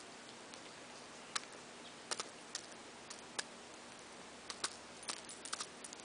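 Budgerigar cracking and husking seeds with its beak: sharp, irregular clicks, a few at first and coming closer together in the second half.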